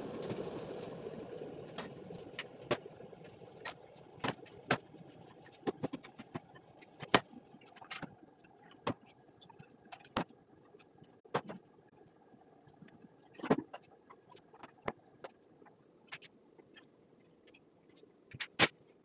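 Scattered sharp clicks and light knocks of tools and wood being handled, one or two a second, with a heavier knock about two-thirds of the way through. A steady noise fades away in the first couple of seconds.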